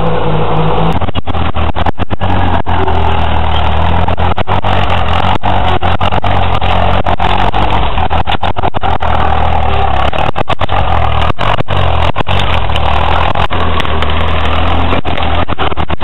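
Engine of a vintage grey Ferguson tractor on half-tracks running hard and steadily under load as it crawls over logs and brush. The recording is loud and distorted, breaking up in many brief dropouts.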